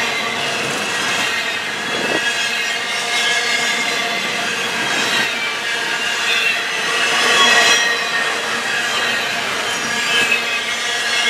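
Double-stack intermodal well cars of a freight train rolling past at close range, steel wheels on the rails with a steady high-pitched squeal over a continuous rumble.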